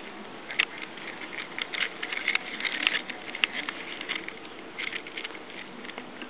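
A kitten's paws and claws skittering and tapping on a hardwood floor as it twists and scrambles after a balloon. There is a run of quick, irregular ticks and scratches, with a second cluster near five seconds.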